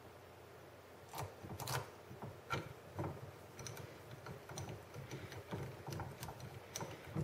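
Hex key turning a quarter-20 cap screw into an aluminium bearing block: a string of faint, sharp metal clicks at an uneven pace, about one or two a second, as the key is worked round and re-seated in the screw head.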